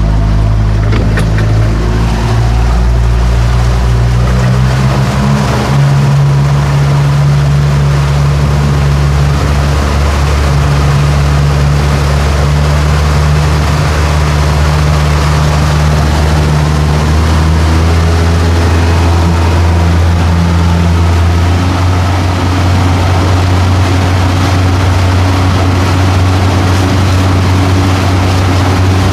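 A boat's engine running steadily under way, a low drone whose pitch shifts slightly a couple of times, with a rush of wind and water noise over it.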